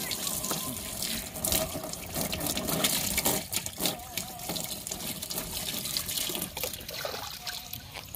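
Water poured from a plastic mug over a gutted grey mullet, splashing off the fish and trickling into a plastic tub as the fish is rinsed by hand.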